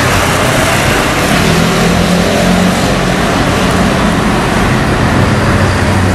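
Road traffic going by, with the steady low engine drone of an open-top double-decker tour bus driving past close by.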